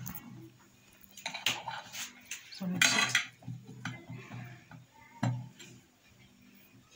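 A knife clinking and scraping against a ceramic plate while cutting a semolina griddle bread: a few short knocks, a longer scrape about three seconds in, and one more knock a little after five seconds.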